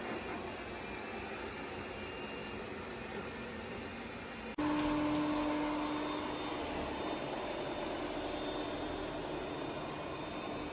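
Ecovacs Deebot T50 Max Pro robot vacuum running with a steady whir. About halfway through the sound cuts abruptly to a louder steady run with a low hum in it.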